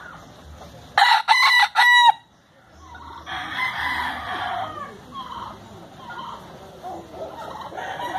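A rooster crows once about a second in: a short crow of a few quick notes ending in a held note that drops off. Fainter fowl calls follow.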